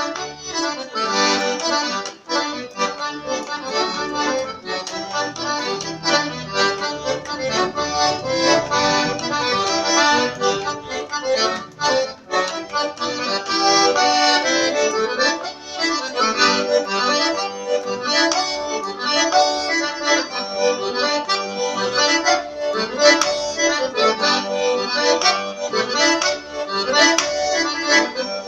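Accordion playing a lively tune without pause, melody notes moving over sustained chords.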